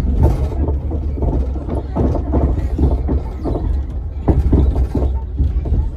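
A steady low rumble with indistinct voices over it.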